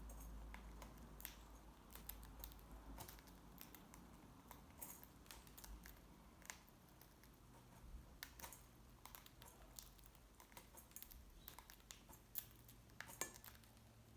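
Cockatiels eating: faint, irregular small clicks and crunches of beaks cracking and nibbling seed, several a second, with no calls.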